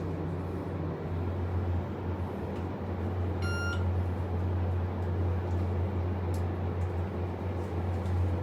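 Steady low hum inside a descending hydraulic elevator car, with one short electronic beep from the car's fixtures about three and a half seconds in.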